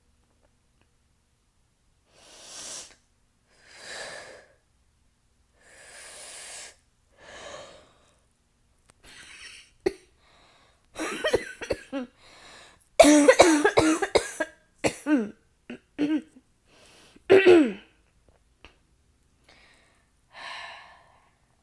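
A woman breathing in heavily several times, then breaking into a harsh, rasping coughing fit of many coughs in quick runs about halfway through, ending with one more breath.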